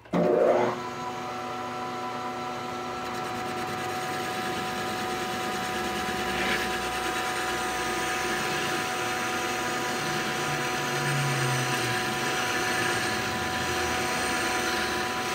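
Metal lathe switched on with a sudden surge, then running steadily with a constant gear whine while a parting tool cuts off a washer from O1 tool-steel bar stock.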